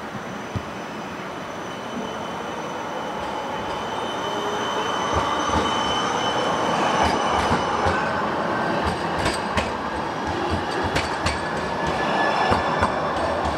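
Siemens Avento tram-train passing close by on a curve. It grows louder as it comes near, with high steady wheel-squeal tones, then a run of sharp clicks from the wheels on the rails in the second half.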